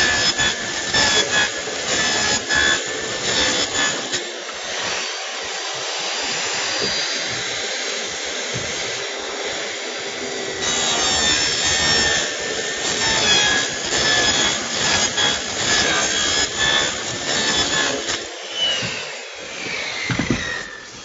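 An 8 1/4-inch circular saw runs with a steady whine as it cuts through an insulated concrete form block, slicing the expanded polystyrene foam and its plastic webs.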